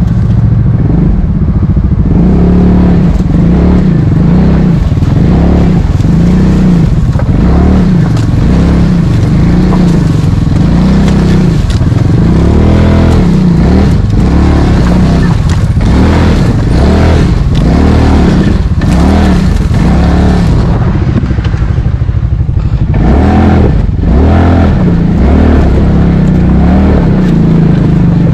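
Four-wheeler (ATV) engine running, its pitch rising and falling over and over as the throttle is pulsed to crawl over rocks in a creek bed. Some clattering knocks in the middle.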